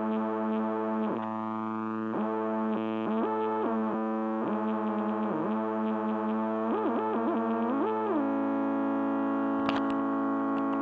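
Distorted synthesizer drone: a sustained buzzy tone that keeps sliding down in pitch and back up, then settles on one steady held note for the last few seconds, with a brief click shortly after it settles.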